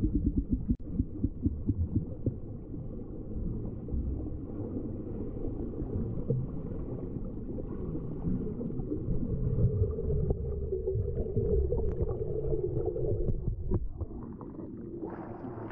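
Muffled underwater sound of pool water churned by swimmers' freestyle strokes and kicks: a dull, bass-heavy thumping and rushing, with quick irregular thumps in the first few seconds. Near the end the microphone breaks the surface and the splashing turns brighter and clearer.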